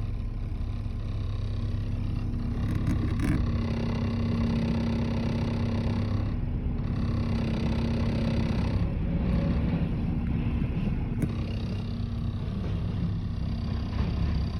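Engine running steadily, with a noise that the owner wonders may be piston slap.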